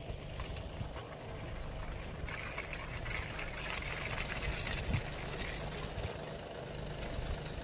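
A car's engine running steadily under a rushing hiss that grows louder about two seconds in and eases again a few seconds later: the car is stuck and slipping in fresh snow.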